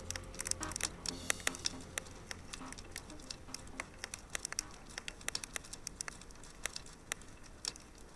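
Wood fire crackling, with irregular sharp pops and snaps several times a second. A low hum fades out in the first two seconds.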